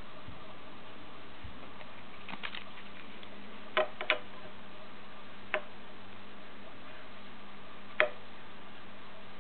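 Sharp plastic clicks and taps from the Avanti stopwatch's case being pressed and handled: two close together about four seconds in, one more a second and a half later, and the loudest near the end, over a steady faint hiss.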